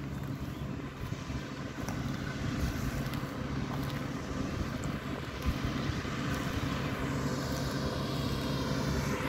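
Steady hum of a motor with an even pitch, growing slightly louder over the last few seconds.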